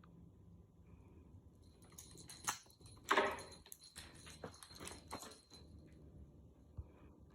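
A tabby cat playing wildly: a flurry of scrabbling, clicks and knocks, with the loudest knock a little after three seconds in.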